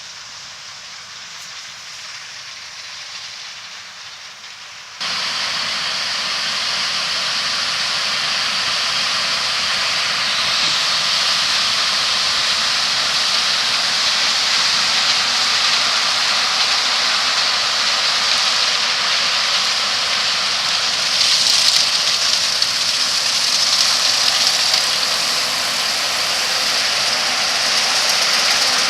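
Combine harvester running steadily, cutting in suddenly and loud about five seconds in after a quieter stretch.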